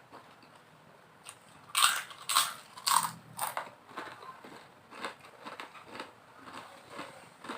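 Chewing crisp fried crackers: four loud crunches in quick succession, then steadier chewing with smaller crunches.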